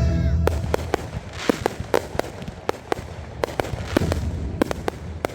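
Fireworks going off: a rapid, irregular string of sharp pops and cracks, several a second, over a low rumble. Music cuts out about half a second in.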